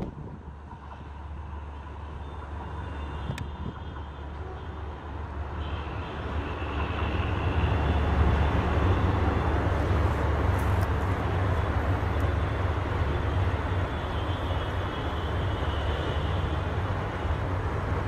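Silk City Express passenger train running on the tracks: a steady low rumble with wheel and rail noise. It grows louder a few seconds in, then holds steady.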